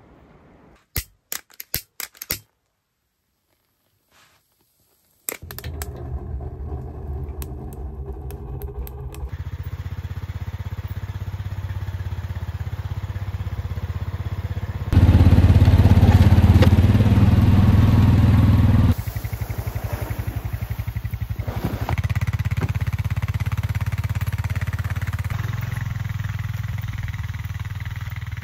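A few short sharp clicks, then about three seconds in, an ATV engine starts running steadily and keeps running as the four-wheeler is ridden through snow, towing a tote; it is loudest in the middle stretch.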